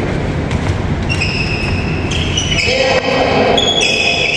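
Sports shoes squeaking on a wooden badminton court floor: several high squeaks starting about a second in and overlapping toward the end, over a steady low rumble from the hall.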